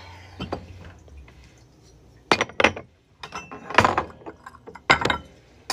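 Ceramic plates and bowls clinking and knocking together as they are handled and set down on a table, a handful of sharp separate clinks.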